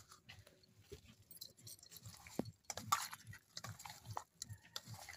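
Hands mixing raw fish pieces with turmeric in a steel bowl: faint, irregular wet squelching with small clicks and taps of the pieces against the metal.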